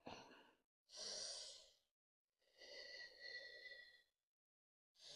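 Near silence, broken by three faint, breathy puffs of noise.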